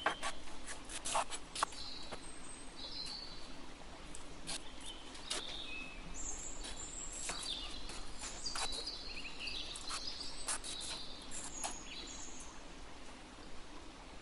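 Birds chirping in short, scattered calls, with irregular sharp taps of a knife on a wooden cutting board as raw chicken breast is cut into pieces; the loudest taps come in the first two seconds.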